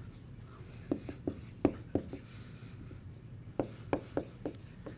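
Hand writing on a classroom board: a series of short taps and scratches from the pen or chalk, in two runs, about a second in and again past the middle.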